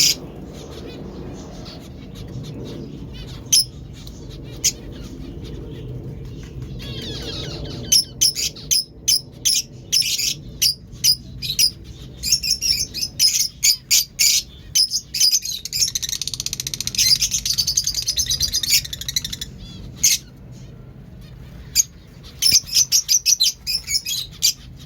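Fischer's lovebirds chirping: short, sharp, high chirps in quick runs, with a stretch of continuous chattering in the middle.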